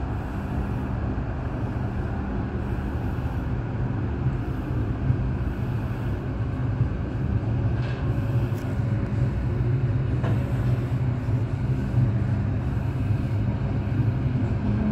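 Passenger train coach running along the track, heard from inside the carriage: a steady low rumble with a few faint clicks.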